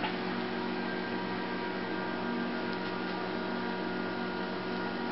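Steady electrical hum with hiss, made of several steady tones.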